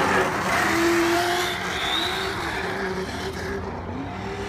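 Traxxas Slash 4x4 RC short course truck driven hard in fast circles on asphalt: its electric drive whines, the pitch rising and falling with the throttle, over the hiss of tyres on the pavement. It is loudest about a second in and fades a little toward the end.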